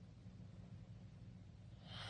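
Near-silent pause between a sleeping teenager's snores, over a low steady hum, with the next loud snoring breath starting right at the end.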